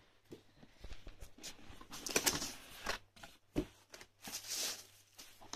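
Paper and cardboard rustling and crinkling as a gift box is opened and its tissue-wrapped contents handled, with scattered light knocks and clicks. It is loudest about two seconds in and again around four and a half seconds.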